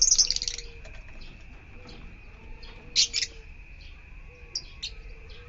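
Yellow-collared lovebirds chirping: a loud burst of shrill chirps at the start and another about three seconds in, with scattered softer chirps in between.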